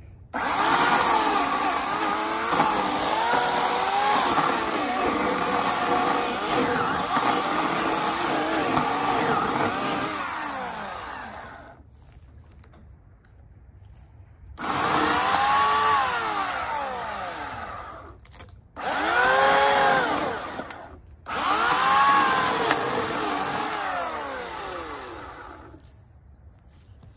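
Homelite 14-inch 9-amp electric chainsaw cutting through a fallen locust log, its motor pitch sagging and recovering as the chain bites into the wood. It runs for about eleven seconds, stops, then runs three more times in shorter bursts, each starting and cutting off sharply on the trigger.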